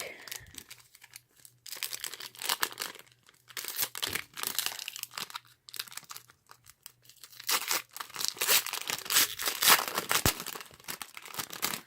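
Foil wrapper of a Donruss football card pack being torn open and crinkled, in irregular crackling bursts.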